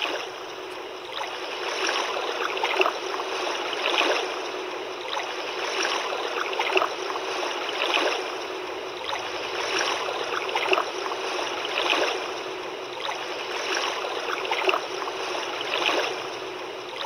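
Fisher-Price Luminate bassinet's built-in soothing sound: a water-like rushing noise that swells about every two seconds, played as a short repeating loop.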